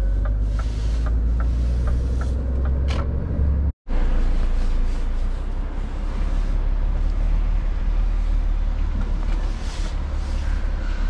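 Truck engine running, a steady low rumble, with a faint regular ticking at about three a second during the first few seconds. The sound cuts out for an instant about four seconds in, then the engine rumble continues.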